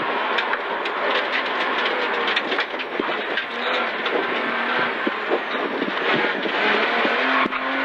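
BMW E36 325i rally car heard from inside its stripped cabin while being driven on a stage: a loud, steady mix of straight-six engine and road noise, full of quick clicks and rattles. A few brief steady engine tones come through near the middle and again near the end.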